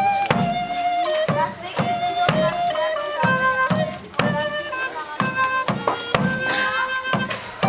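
Live medieval dance music: a wind instrument plays a melody of held notes over a large drum beating about two strokes a second.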